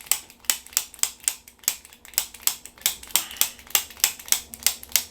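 Chiropractic activator adjusting instrument firing over and over, giving sharp clicks about two or three a second as it delivers quick spring-loaded impulses to the joints of the neck.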